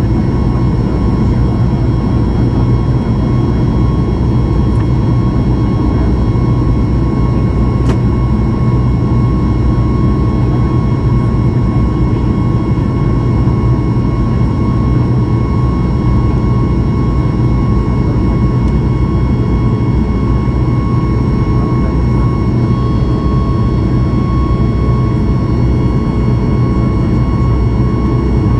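Boeing 737 MAX 8's CFM LEAP-1B turbofan engines and airflow heard from inside the cabin in flight: a steady low drone with a faint, even high whine over it.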